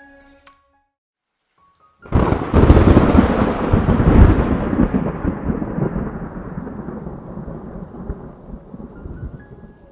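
A thunderclap with rain: a sudden loud crash about two seconds in, rumbling on and slowly dying away over several seconds.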